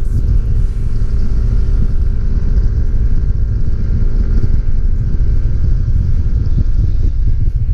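Yamaha NMAX scooter under way: its single-cylinder engine runs steadily beneath a heavy, constant wind rumble from riding speed.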